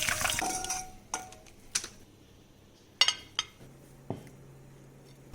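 Running tap water that stops under a second in, followed by several sharp clinks and knocks of dishes and utensils being handled, with a faint low hum in the second half.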